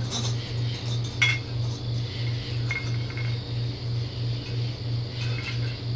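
Glass and dishes clinking lightly a few times, as things are moved about in a refrigerator, over a steady low hum that pulses about three times a second.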